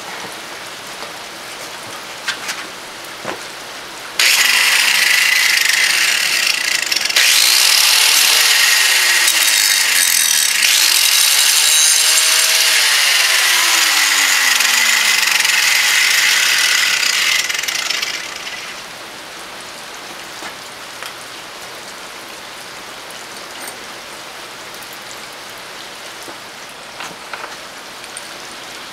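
Angle grinder grinding the end of a steel bolt flat for about fourteen seconds, starting about four seconds in and stopping near eighteen seconds; the motor's pitch sags and recovers as it is pressed into the metal.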